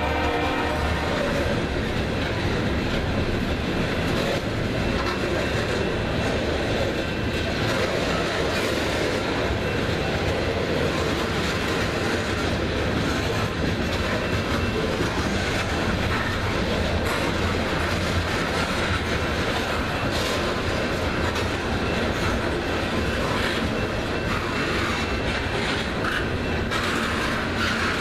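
BNSF ballast train's hopper cars rolling past, a steady noise of steel wheels on jointed rail. A train horn sounds at the start and stops about a second in.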